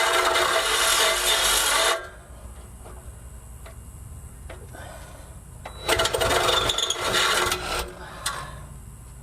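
A power cutting tool runs steadily through the steel exhaust pipe, then stops abruptly about two seconds in. After a few light clicks, a second loud, rough burst of cutting follows for almost two seconds.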